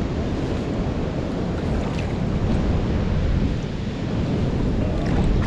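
Wind buffeting the microphone: a dense, steady low rumble.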